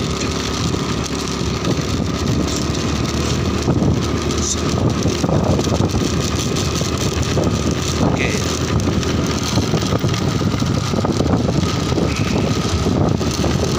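Motorcycle under way on a road: its engine running with steady road and wind noise.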